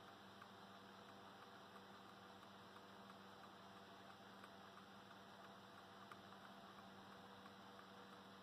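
Near silence: a faint steady electrical hum over low hiss.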